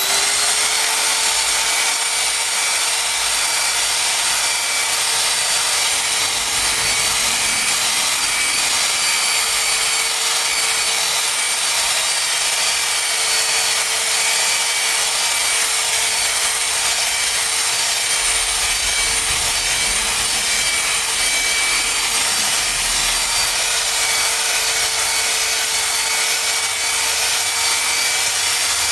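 Electric machine polisher running steadily on car paintwork: a constant motor whine at one pitch over the hiss of the pad on the paint.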